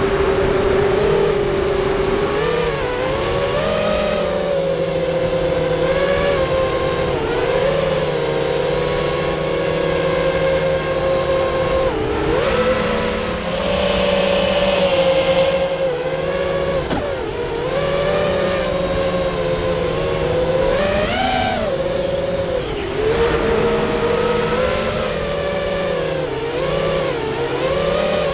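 FPV quadcopter's brushless motors and propellers whining, heard from the onboard GoPro, the pitch rising and falling again and again as the throttle changes.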